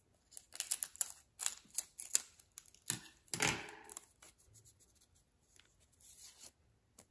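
Scissors snipping open the top of a plastic baseball-card pack wrapper, a run of short crisp clicks, then a louder crinkling rustle of the wrapper about three and a half seconds in as the pack is opened and the cards are pulled out.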